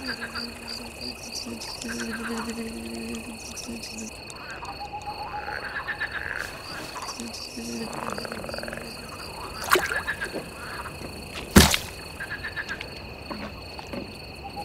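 Frogs croaking in pulsed trills that come and go over a steady, high chirring of crickets. Two sharp knocks come in the second half, the louder one about three-quarters of the way through.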